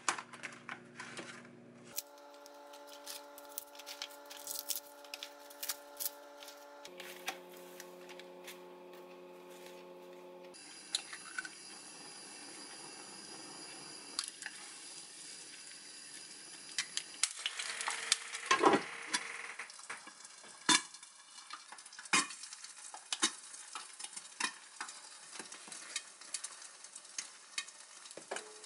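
An egg frying in a nonstick pan, a steady sizzle from about ten seconds in, with a louder crackle and scrape around eighteen seconds. Before that there are clicks and rustles of a plastic bag and containers being handled, and near the end sharper taps of utensils on a wooden cutting board.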